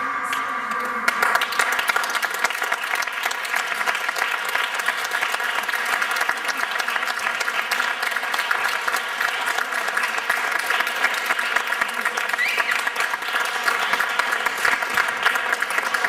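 Audience applauding, breaking out about a second in as a held musical tone ends, then carrying on steadily.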